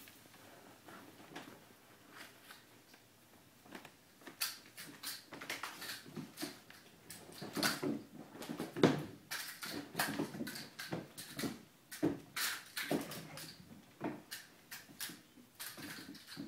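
Cats jumping, landing and scampering on a hardwood floor: irregular thuds, taps and claw scrabbles that grow busy about four seconds in.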